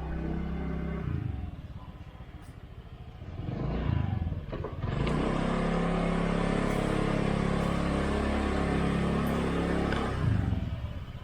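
Motorcycle engine of a samlor three-wheeler running. It revs up about four seconds in, runs loud and steady at higher revs, then drops back near the end.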